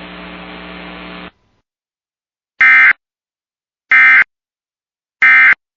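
Emergency Alert System end-of-message signal: three short, loud SAME digital data bursts about 1.3 seconds apart, marking the end of the alert. A steady hum cuts off about a second in, before the first burst.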